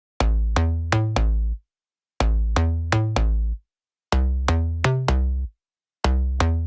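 Electronic music: short phrases of four quick pitched notes with a heavy bass, starting about every two seconds, with silent gaps between them.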